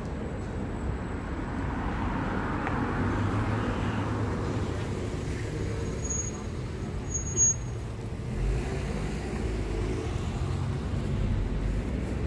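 Street traffic ambience: passing cars with a steady low rumble, and a brief high-pitched squeak about seven seconds in.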